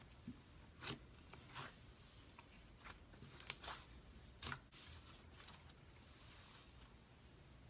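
Slime being squished and pulled by hand: faint, scattered squelches and small pops, with one sharper click about three and a half seconds in.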